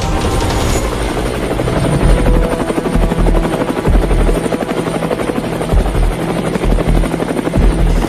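Helicopter rotor chopping steadily, with deep low thuds a few times.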